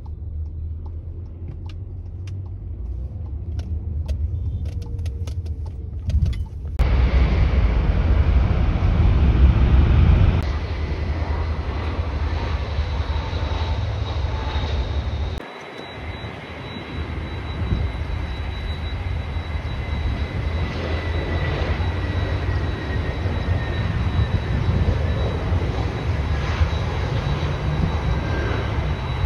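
Jet airliner engines: a low rumble that becomes much louder about seven seconds in, then steady engine noise with a thin high whine and a tone that slowly falls in pitch.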